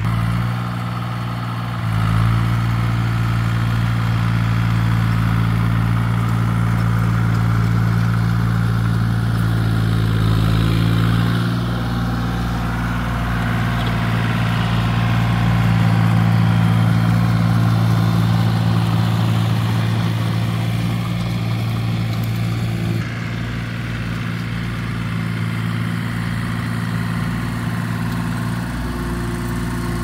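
A farm machine's engine running steadily. It gets louder about two seconds in and drops back a little about three quarters of the way through.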